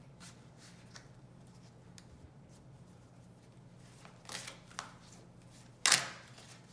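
Tarot cards being shuffled by hand: a few short rustling swishes in the second half, the last one much louder, over a faint steady low hum.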